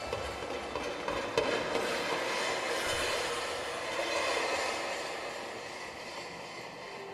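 Drawing materials such as pastels, crayons and markers scratching and scraping across paper, picked up by microphones built into a drawing table and amplified into a continuous rasping noise.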